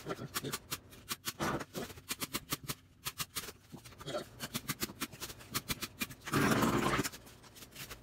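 Hand staple gun fastening screen mesh to a wooden frame: a run of sharp clicks and snaps, then a louder scraping noise lasting under a second about six seconds in.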